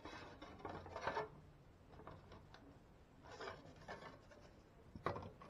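Hands fitting a blade into a scroll saw's lower blade clamp: faint rubbing and scraping in short bursts, with a sharp click about five seconds in.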